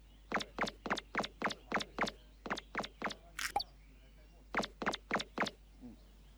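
A run of sharp, evenly spaced clicks, about four a second and a dozen in all, ending in a short hiss. After a pause of about a second come five more clicks.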